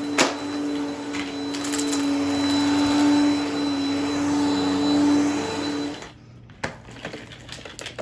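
Vacuum cleaner running with a steady pitched motor hum and a sharp click just after the start. About six seconds in the hum stops and the sound drops sharply, followed by another click and a quick run of ticks near the end.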